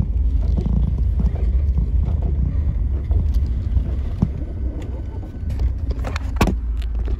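Handling noise on a phone's microphone: a steady low rumble, with a few sharp knocks about six seconds in as a finger moves over the phone.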